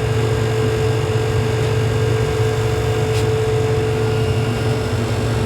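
Dehumidifier running, its compressor and fan giving a steady low hum with a constant whine above it as it draws moisture out of the room air.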